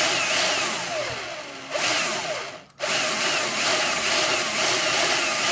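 Bosch drill whirring as it spins a Lego V12 engine's crankshaft and pistons, with a regular wavering a few times a second. The drill stops for a moment about halfway through and starts again.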